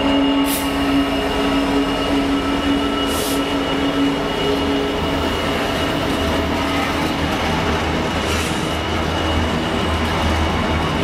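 A Class 66 freight locomotive passing, its two-stroke V12 diesel engine droning and fading away over the first five seconds or so. Container wagons then roll steadily past, with a thin, steady high-pitched wheel squeal and a few brief hisses.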